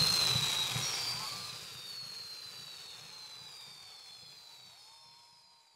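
Ground fireworks fountains hissing with high whistling tones that slowly fall in pitch, fading away steadily to near silence.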